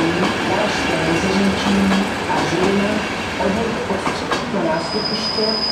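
České dráhy passenger coaches rolling past close by, the wheels clacking over rail joints. A high, steady wheel squeal sets in about three-quarters of the way through.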